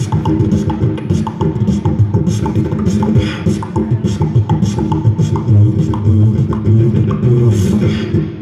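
Amplified beatboxing into a handheld microphone over a didgeridoo drone: a steady rhythm of vocal clicks, kicks and hissing snares rides on the low, continuous didgeridoo.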